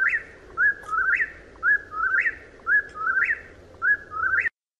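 Whip-poor-will singing its whistled three-note call over and over, about once a second, each call ending on a rising note. It cuts off abruptly near the end.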